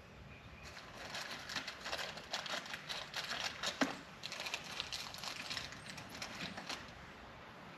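Faint, scattered small clicks and scrapes of hands working a steel fork-tube cap while replacing the O-ring on top of it, with one sharper click near the middle.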